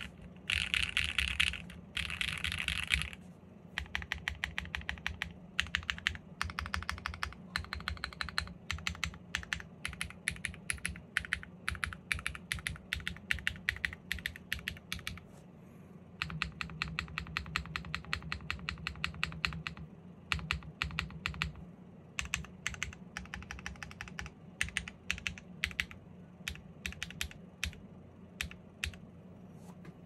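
Typing on a GEONWORKS F1-8X V2 custom mechanical keyboard fitted with Sarokeys BCP switches, a 1.5 mm aluminium plate with plate foam, and GMK Apollo keycaps. It opens with two dense flurries of keystrokes, then steady typing with brief pauses and another fast run about halfway through.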